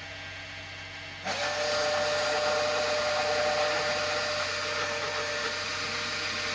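Electric drill with a long bit, starting about a second in and running steadily as it bores through foam insulation and the fiberglass wall, with a steady whine.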